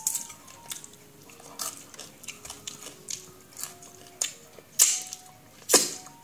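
Close-miked eating sounds: a series of short crunches and clicks from biting and chewing, the two loudest about a second apart near the end.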